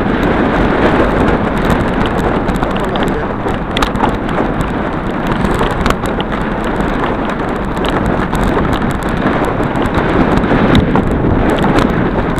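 Wind rushing over a handlebar-mounted microphone as a bicycle rolls quickly over a rough grass track, with scattered clicks and rattles from the bike.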